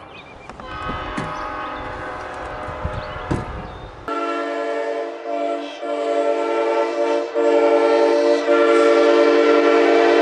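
Train air horn sounding a steady chord of several notes, fading at first over a low rumble and a few knocks. About four seconds in, a louder horn chord starts abruptly and holds, growing louder toward the end.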